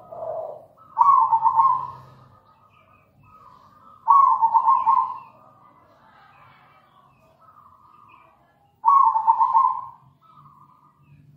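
Zebra dove (perkutut) cooing: three loud, rolling, trilled coos about four seconds apart, with softer coo notes between them.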